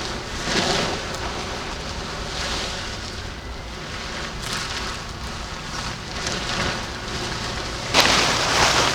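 Steady rain with a constant hiss that swells every two seconds or so, and a louder rush near the end.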